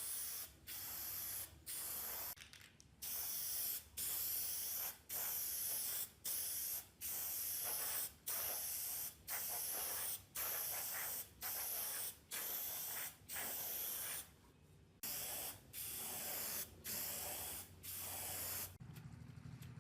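Aerosol spray can hissing in short, even bursts about once a second, with a brief pause about fourteen seconds in; the spraying stops near the end.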